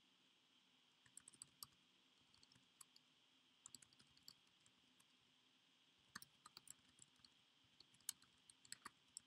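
Faint computer keyboard typing in short bursts, separate key clicks coming in small clusters with pauses between them.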